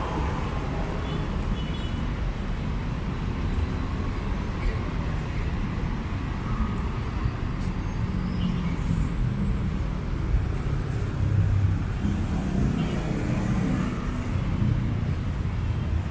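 Steady city road traffic: cars and other vehicles running past with a constant low rumble.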